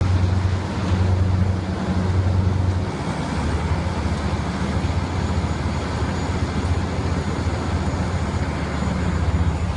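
Diesel engine of a Scania 250 kVA supersilent (sound-insulated) generator set running steadily, a deep even drone with a slight swell and dip in the first few seconds.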